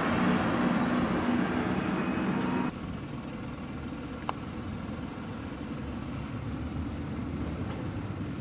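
Street traffic: a motor vehicle's engine running with a steady low hum, dropping abruptly to a quieter low traffic rumble a little under three seconds in. A single sharp click about four seconds in and a short high tone near the end.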